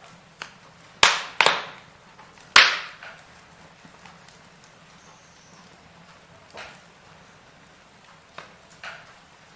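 Wood fire in a fireplace crackling: sharp pops at irregular intervals, the loudest three within the first three seconds and a few softer ones later, over a faint steady hiss.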